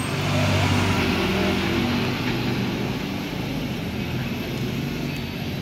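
A vehicle engine running steadily, loudest about a second in and then slowly fading.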